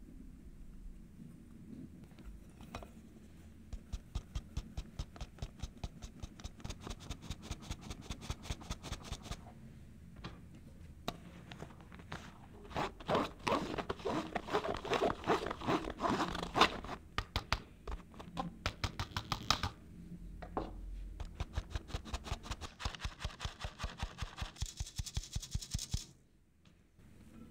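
A wire whisk scraping and stirring flour through a fine-mesh stainless steel sieve in quick, regular strokes, with a louder stretch of dense scratching midway. The strokes stop abruptly near the end.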